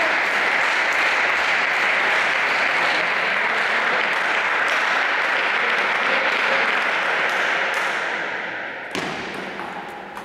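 Spectators applauding, many fast claps that fade away about eight seconds in, followed by a sharp knock of a table tennis ball near the end.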